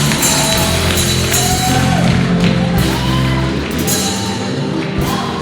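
Church worship music with held keyboard chords under a sung or wordless vocal line that slides in pitch.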